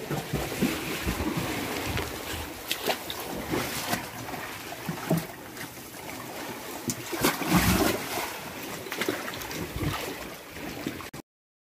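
Wind buffeting the microphone over surf on a rocky shore, with scattered sharp clicks and knocks. The sound cuts off abruptly near the end.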